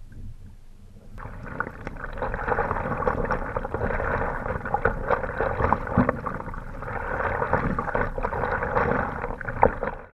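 Water gurgling and splashing around a stand-up paddleboard as it is paddled, with a busy patter of small clicks and knocks. The sound cuts off suddenly near the end.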